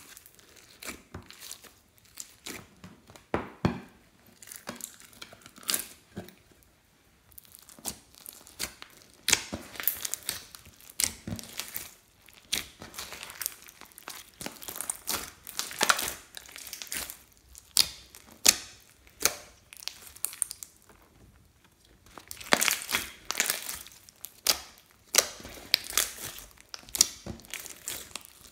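Slime loaded with beads, glitter and sequins being squeezed, stretched and kneaded by hand: irregular sticky clicks and crackles, with a few brief lulls.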